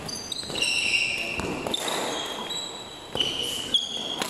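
Sports shoes squeaking on an indoor badminton court floor during a doubles rally, many short high squeaks, with a few sharp racket hits on the shuttlecock.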